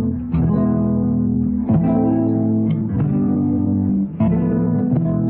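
Instrumental music on a guitar-like plucked-string instrument, held chords changing about every one to one and a half seconds.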